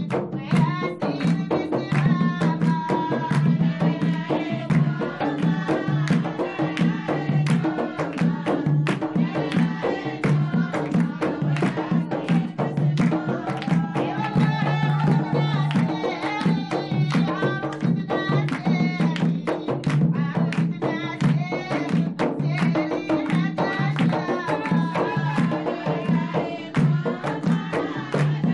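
Traditional folk wedding music: drums and hand-clapping keep a steady, dense beat under singing.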